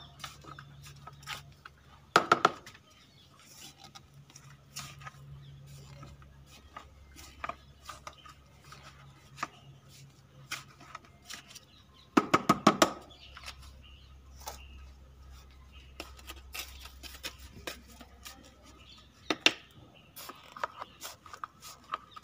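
Soil being scraped and poked with fingers and a small hand tool inside plastic plant buckets: scattered light scrapes and clicks. Twice, about 2 seconds and 12 seconds in, there is a louder short burst of rapid rattling knocks.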